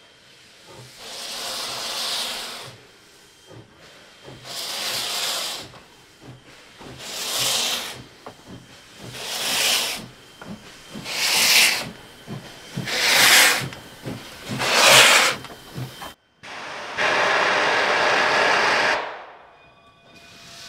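D&RGW K-36 2-8-2 steam locomotive #488 starting away slowly with its cylinder cocks open: a run of seven long hissing steam chuffs, about two and a half seconds apart at first and under two seconds apart by the end. After a cut near the end comes one steadier hiss of steam lasting about two seconds.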